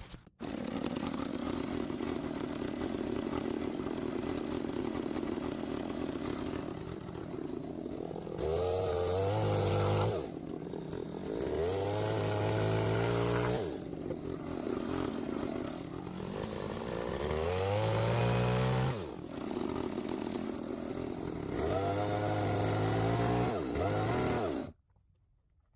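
Two-stroke chainsaw running at a steady idle, then revved up hard four times, each rev held for two or three seconds before dropping back; the engine cuts off abruptly near the end.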